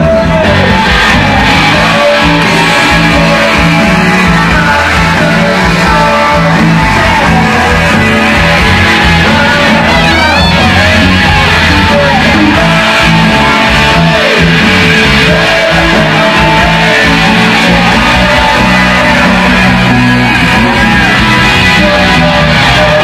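Live rock band playing, with an SG-style electric guitar playing a lead line over bass guitar and drums; the held notes bend and waver about ten seconds in.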